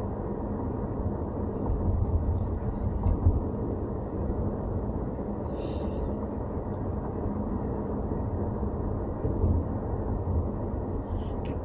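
Car cabin noise while driving: a steady low rumble of engine and tyres on the road, swelling a couple of times, with a few faint ticks.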